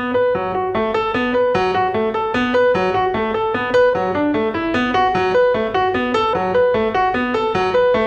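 Background music: a piano playing a quick, repeating pattern of notes, starting abruptly.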